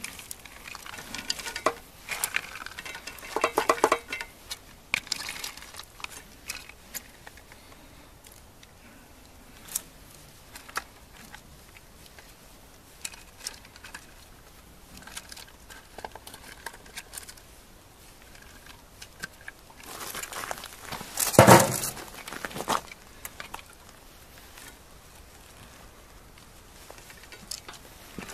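Handfuls of bean sprouts dropped into a cooking pot onto fish, a light rustling patter with scattered small clicks, and one louder clatter about two-thirds of the way through.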